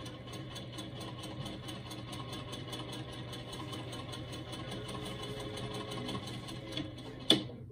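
Electric sewing machine running steadily, its needle making a rapid, even stitching rhythm as it sews a seam through vacuum-bag fabric. A single sharp click comes shortly before the end.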